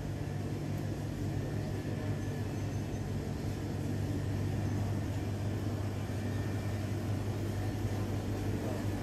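Steady low hum of indoor ambience with a faint background hiss, unchanging throughout.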